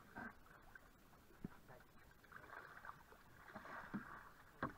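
Canoe paddles dipping and swishing through slow river water, soft and quiet, with a few short knocks, the sharpest near the end.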